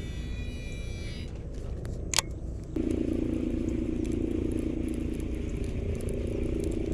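Baitcasting reel casting and retrieving a spinnerbait: a high whine from the spinning spool that fades in the first second, a sharp click about two seconds in, then a steady whir of the reel's gears as the handle is cranked for a slow retrieve. Wind rumbles on the microphone throughout.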